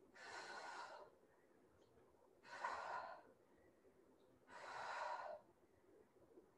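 A woman breathing with exertion during a strength exercise: three audible breaths, each under a second long, about two seconds apart.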